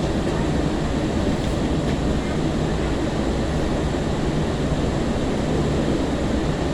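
Interior noise of a Breda LRV3 light rail car: a steady low rumble with a faint hum underneath and no sudden events.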